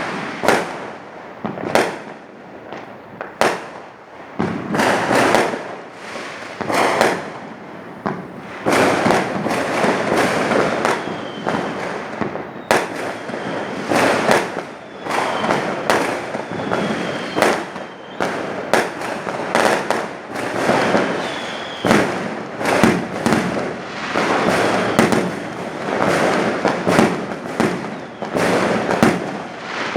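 Fireworks going off in a rapid, continuous series of bangs and crackles, with a few short whistles among them.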